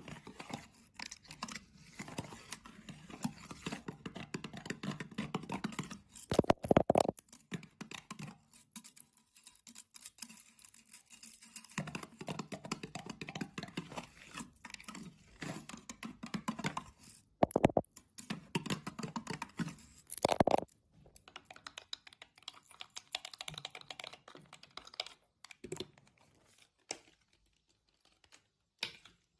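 Metal fingernail tips tapping and scratching rapidly on a stainless-steel jar lid, with a few louder knocks. The clicking thins out to scattered taps near the end.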